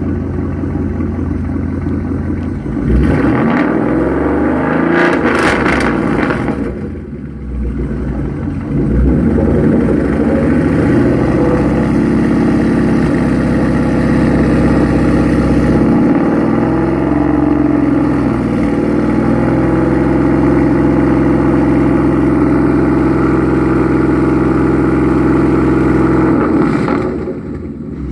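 2014 Ford Mustang GT's 5.0-litre V8 engine running and being revved: a steady idle, a rev about three seconds in, then raised revs that rise and fall for most of the time before easing back near the end.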